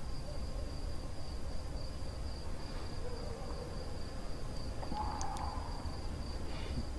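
Quiet dialogue-free background of a dubbed drama soundtrack: a low hum and a steady high-pitched whine, with a short hooting tone about five seconds in.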